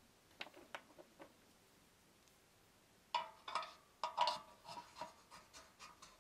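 Small clicks and scrapes of metal parts being handled as spring-wound terminal rods are fitted onto the brass terminals of an old copper-and-cast-iron electric radiator. Four light clicks come about half a second in, then from about three seconds in a run of louder clicks and scrapes with a brief metallic ring.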